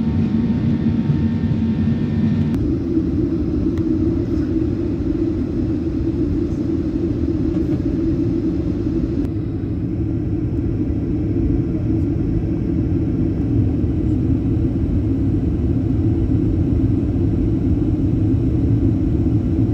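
Steady rumble of jet airliner cabin noise in flight, from engine and airflow, heaviest in the low range. Its tone shifts slightly about three seconds in and again about nine seconds in.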